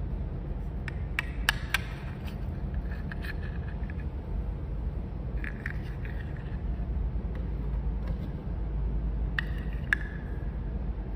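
Miniature toy wafer biscuits clicking and tapping together as they are handled, in small clusters of light clicks, some with a short ring, over a steady low rumble.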